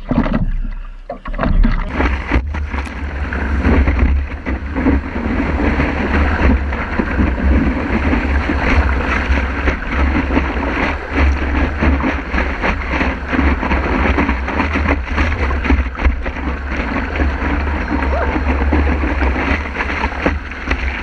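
Water rushing and splashing along a surfboard as it rides a broken wave, with heavy wind and water rumble on a camera mounted on the board's nose. The rush comes in about two seconds in and stays steady.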